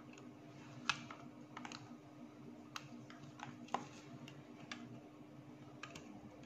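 Light, irregular clicks and taps of a screwdriver tip and wires against the plastic screw terminal block of a Carel IR33 temperature controller as it is handled, about eight in all.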